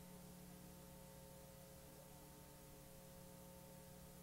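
Near silence, with a faint steady hum under a light hiss.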